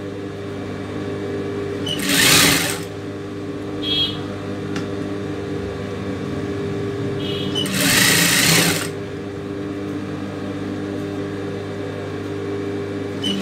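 Sewing machine stitching fabric in two short runs, one about two seconds in and a longer one of about a second and a half near eight seconds in, over a steady hum.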